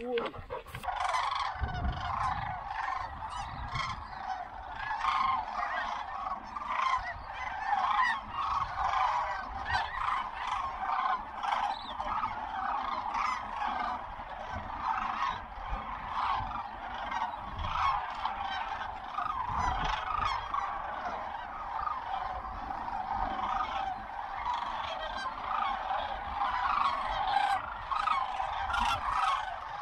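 A large flock of sandhill cranes flying over, many birds calling at once in a dense, unbroken chorus.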